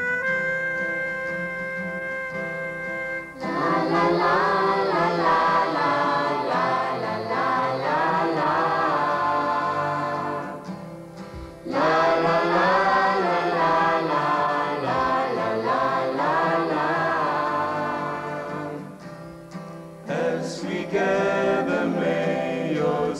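Gospel choir singing, opening on a few seconds of steady held instrumental notes. The singing breaks off briefly twice, about ten seconds in and again near the end, before going on.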